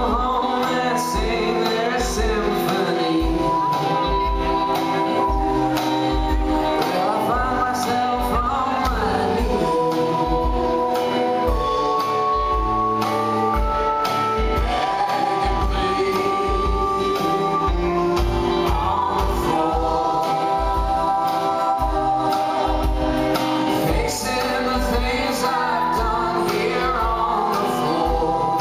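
Live band performing a slow, gospel-tinged rock song: a male lead voice sings held notes over backing vocals and a steady kick-drum beat.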